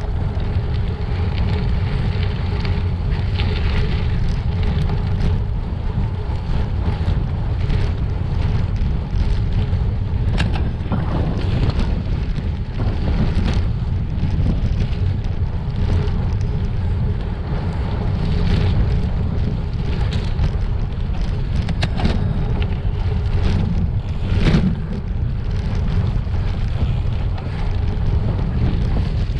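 Wind buffeting the microphone and the rumble of a gravel bike rolling over a rough, rocky trail, with frequent short knocks and rattles from the bike jolting over bumps.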